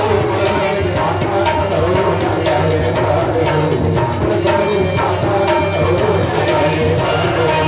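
Ramdhuni devotional ensemble music: a tabla-like hand drum beating a steady rhythm under sustained drone notes and a wavering melody line.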